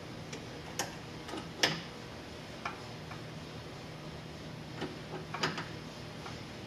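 Scattered metallic clicks and taps at uneven intervals, the loudest about a second and a half in and a small cluster near the end, over a faint steady hum: a wrench working the threaded inner tie rod to adjust the toe.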